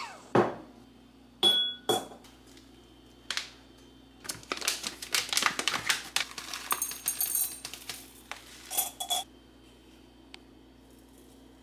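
A stovetop kettle's whistle dies away at the start, then a ceramic mug is set down on the counter with a knock and a couple of ringing clinks. A resealable tea bag crinkles as it is opened and handled, and near the end a stainless steel tea infuser clinks.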